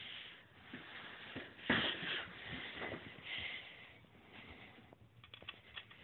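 Hampton Bay Huntington III ceiling fan running, heard as irregular airy whooshes that are loudest about two seconds in, with a few light clicks near the end.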